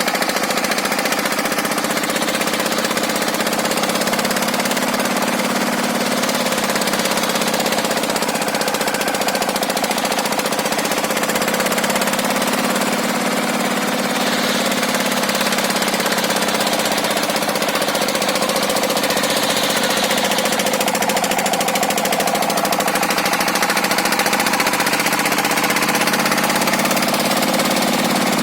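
Engine-driven circular saw running under heavy load as it rips hard, fibrous timber, its engine pitch sagging and recovering a few times. The saw blade has never been filed, so the machine labours through the cut.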